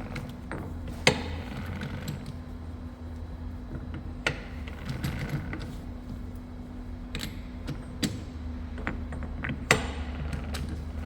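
Sharp metallic clinks and knocks from lathe chuck jaws being changed over: separate hits every second or few, the loudest about a second in and near the end, over a steady low workshop hum.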